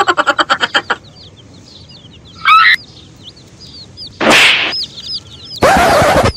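Chickens: chicks peep repeatedly throughout, over a fast run of clucking at the start. Loud, harsh chicken calls come about two and a half seconds in, at about four seconds, and near the end.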